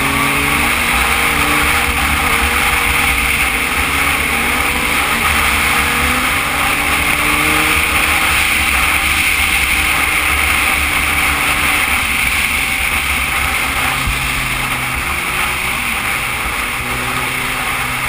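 A sport motorcycle's engine running at steady road speed, its pitch drifting slightly, under heavy wind rush and buffeting on the bike-mounted camera's microphone.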